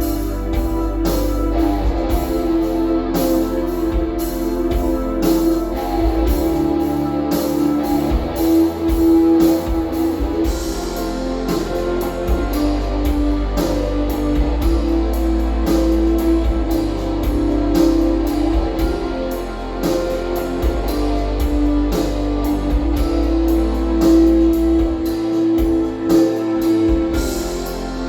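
Guitar-led music with a drum kit, played back through a pair of RCF Ayra Pro6 active studio monitors as a sound test.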